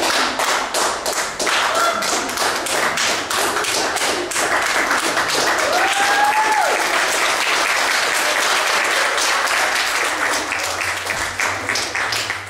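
Audience applauding: dense, steady clapping from a crowd, with a short cheer rising and falling about six seconds in.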